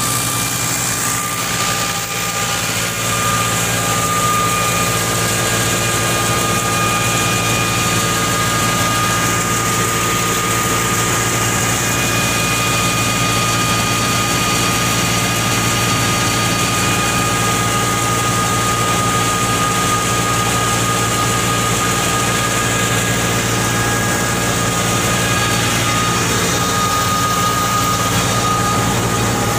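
Fiat 640 tractor's diesel engine running steadily under load as it drives a wheat thresher, the engine and the thresher's drum sounding together as one continuous, even drone. The wheat being threshed is wet, which makes it heavy work for the engine.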